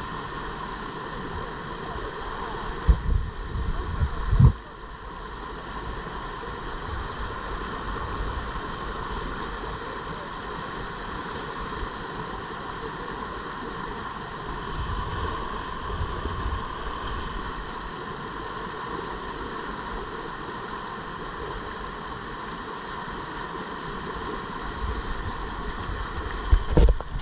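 River rapid: whitewater rushing steadily over a rock ledge close by. A few short low thumps come about three and four seconds in and again near the end.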